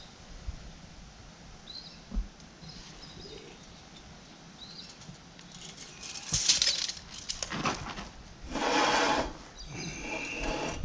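Steel fence pipe and a tape measure being handled: several stretches of metal scraping and rattling from about six seconds in. The loudest lasts about a second, around the three-quarter mark, and the last carries a brief high ring. Faint bird chirps come in the quieter first half.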